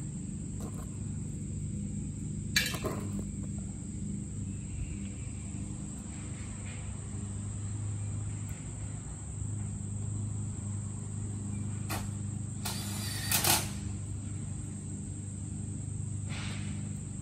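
Steady high-pitched drone of insects such as crickets over a low steady hum, broken by a short noisy rustle about two and a half seconds in and a longer one around thirteen seconds.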